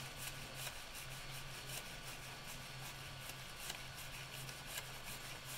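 A sheet of paper rubbing and rustling as it is slid back and forth under a 3D printer's nozzle to check the gap to the bed, with faint irregular ticks over a low hum.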